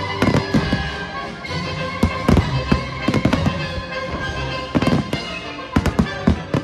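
Aerial firework shells bursting in sharp bangs, coming in irregular clusters, over music playing along with the display.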